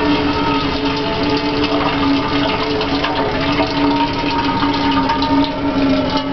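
A thin stream of leak water, draining from a punctured paint bubble in a ceiling, splashing steadily into an aluminium stockpot, with steady ringing tones underneath.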